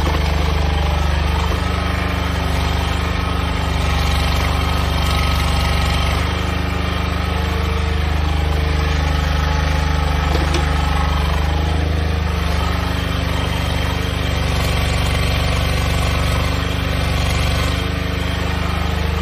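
DW12-1 mini excavator's small engine running steadily while the machine digs and swings its boom, with slight swells in loudness as the hydraulics take load.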